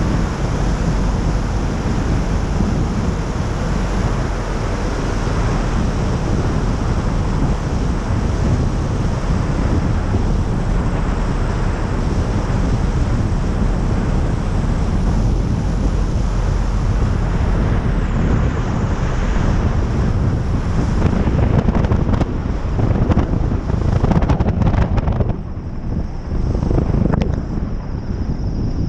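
Heavy wind rush over the microphone on the outside of a Pipistrel Virus SW 100 light aircraft coming in to land. In the last few seconds, as the aircraft rolls out on the grass strip, the noise turns choppier and uneven, with knocks and a brief dip.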